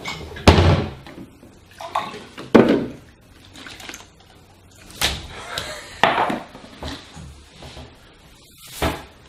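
A wooden kitchen cabinet door bangs shut, then a series of separate knocks and rustles as a drinking glass and a plastic bag are handled on a stone countertop.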